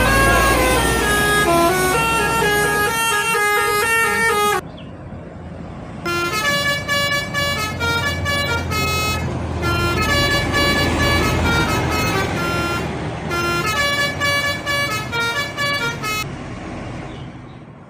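Bus telolet horns, multi-tone air horns playing quick stepped melodies over the low running of a bus engine. The horn playing stops about four and a half seconds in and starts again about a second and a half later, then dies away near the end.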